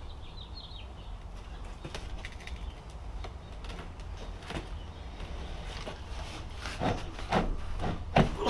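Several sharp wooden knocks near the end, from the rotten wooden post being pried and knocked loose from its nailed side pieces with a pry bar.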